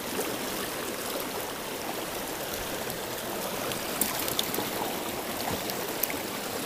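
River water flowing, a steady, even rush, with a few faint clicks about four and six seconds in.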